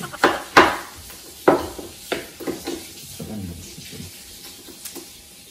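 Cooked lobster shell being cracked and pulled apart by hand: a series of sharp cracks and clicks, the loudest about half a second in, with clinks of cutlery on plates.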